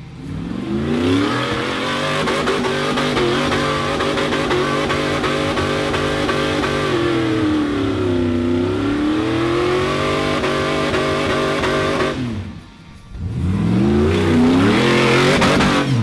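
Off-road Jeep engine revved hard under load on a rock climb, held at high revs with pitch swings. It lets off briefly about three-quarters of the way through, then revs up again.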